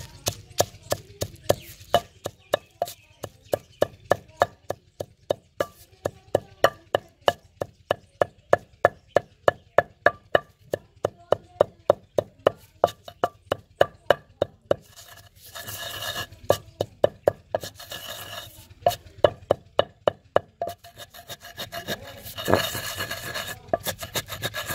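Wooden pestle pounding dried red chillies and salt in a large stone mortar: sharp knocks about three a second. After about fifteen seconds it turns to stretches of gritty grinding as the pestle is rubbed against the stone to crush the chillies to a coarse powder.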